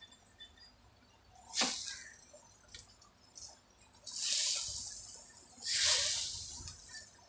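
Flat metal spatula working an egg-coated roti on a hot tawa: a sharp clink about a second and a half in, then two hissing scrapes of about a second each, around four and six seconds in.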